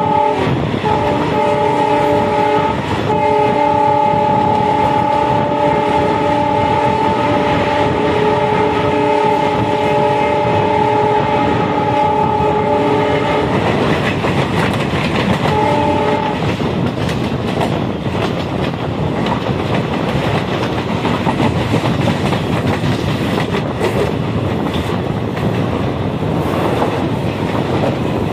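Multi-tone horn of an Alco WDM3D diesel locomotive hauling an express: a short blast, a brief break, one long blast of about ten seconds, then one more short blast a couple of seconds later. Under it and after it, the running train: diesel engine and wheels clattering over the rails.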